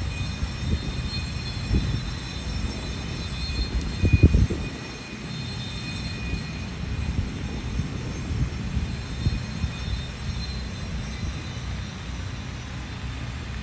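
Wind buffeting the phone's microphone in a gusty low rumble, strongest about four seconds in, with faint steady high-pitched tones above it.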